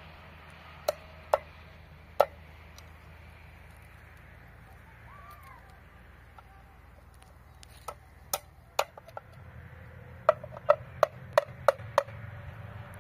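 Small hatchet striking a tin can: sharp metallic knocks with a brief ring, three spaced strikes in the first couple of seconds, a few more after about eight seconds, then a quick run of six, about three a second, near the end.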